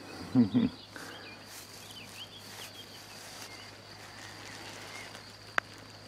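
Quiet outdoor spring ambience: faint scattered bird chirps and a steady high insect trill. A brief murmur of a man's voice comes about half a second in, and a single sharp click near the end.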